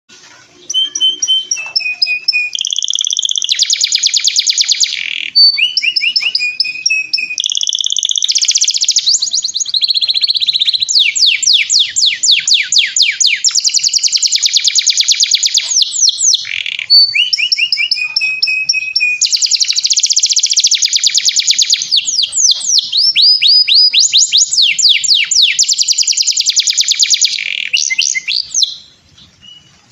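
Domestic canary singing a long, nearly unbroken song of fast trills, rapid repeated notes and sweeping phrases, high-pitched and loud. It falls silent about a second before the end.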